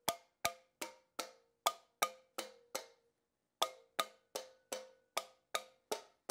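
A soft-face hammer tapping the valve stem ends of a 6.7L Cummins cylinder head one after another, about two and a half blows a second with a short metallic ring after each, and a brief pause about three seconds in. The taps flex the valve springs the way a running engine does, to show that every valve keeper is properly seated.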